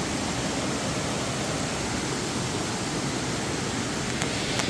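Creek water rushing over rocks in a cascade, a steady even rush. Two faint clicks near the end.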